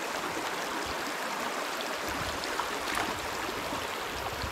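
A small stream running, a steady rush of water.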